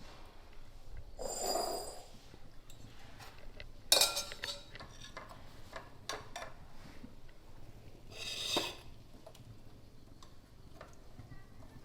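Metal kitchen utensils clinking against cookware in three separate bouts: one about a second in, a sharp, ringing clink about four seconds in, and a shorter one near the ninth second, with faint small ticks between.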